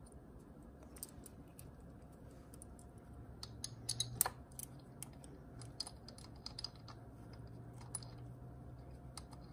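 Light, irregular metallic clicks and taps as short bolts are fitted by hand into the aluminium case of a DCT470 dual-clutch transmission, with a quick cluster of clicks a little before the middle.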